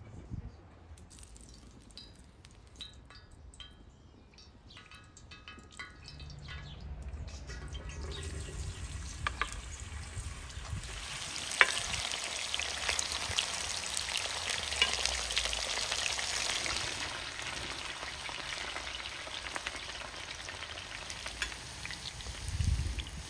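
Crinkle-cut potatoes frying in hot oil in a wide black pan over a wood fire. The sizzle builds about a third of the way in, jumps sharply near the middle with a loud crackle, then holds as a steady sizzle.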